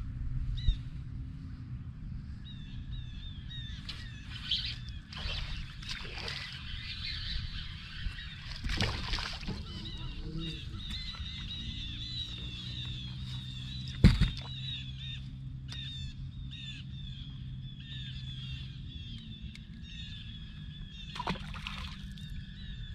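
Birds chirping and calling over a steady low hum, with a few rustling strokes early on and a single loud thump about fourteen seconds in.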